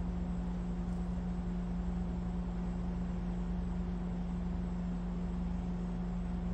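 Steady low mechanical hum, like a motor or engine running, holding one constant tone with no change in level.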